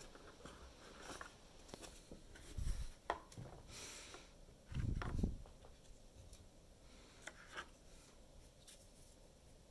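Hands handling a Tello drone's moulded plastic packaging case, with light clicks and rubbing and two dull thumps about two and a half and five seconds in, as the lid comes off and the drone and battery are lifted out.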